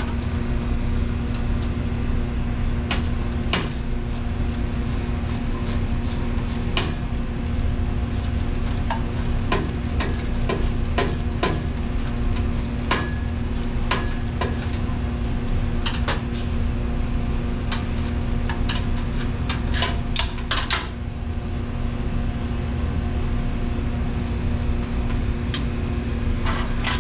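Hand tools clicking and clinking on metal as bolts are taken off a commercial dishwasher, with irregular sharp knocks and a quick run of clicks about twenty seconds in, over a steady low hum.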